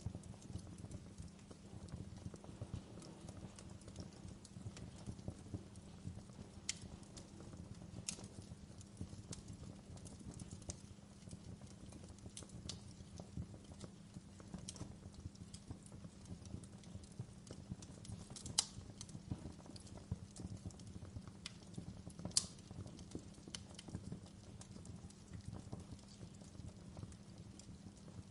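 Wood fire crackling in a fireplace: a steady low rumble under scattered sharp pops and snaps, with two louder pops in the second half.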